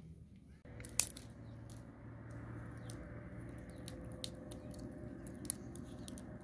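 Small fire of dry twigs crackling, with scattered sharp pops and snaps over a steady low background rush; the loudest snap comes about a second in, another sharp one near the end.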